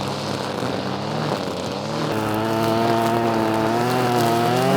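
String trimmer (weed eater) engine running at speed, its pitch wavering slightly as it cuts down weeds.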